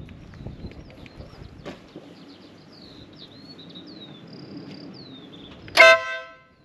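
Small birds chirping and whistling over steady outdoor background noise, with a click near the start. Near the end comes one short, very loud blaring tone that dies away within half a second.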